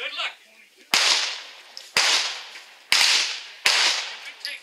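Four handgun shots about a second apart, each a sharp crack that echoes and dies away under the covered firing line's roof.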